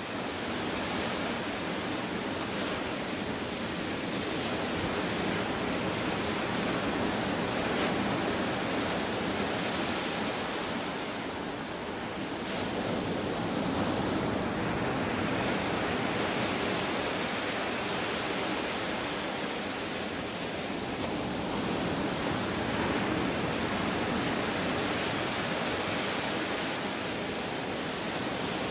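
Atlantic surf breaking along a sandy beach, heard from above as a steady rushing wash that slowly swells and eases.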